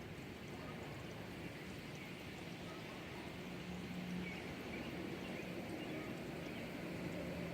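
Steady rain falling, with a faint low hum that swells briefly now and then.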